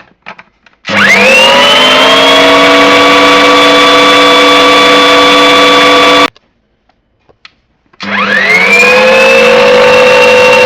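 Electric mixer motor running in the cake batter, mixing in blue food colouring: it spins up about a second in, runs steadily for about five seconds and stops, then spins up again near the end and keeps running.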